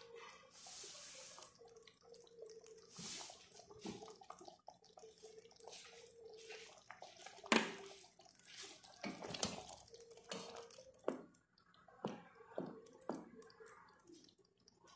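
A pot of chicken and white bean stew simmering on a lowered gas flame, bubbling with irregular pops and one sharper click about halfway through. A wooden spoon stirs in the pot near the end.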